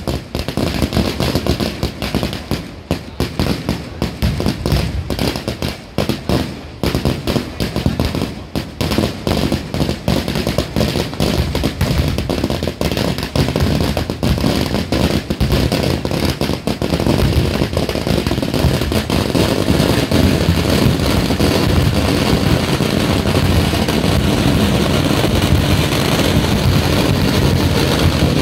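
Firecrackers and ground fireworks going off in rapid, close-packed bangs. Past the halfway point the cracks crowd into one continuous crackle.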